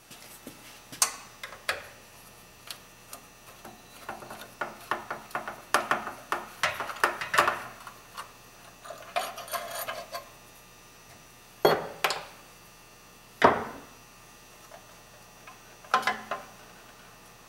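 Hands and tools working at the compressor motor's wiring box: irregular small metal clicks, taps and rattles, with a quick flurry of clicks in the middle and three sharper knocks in the second half.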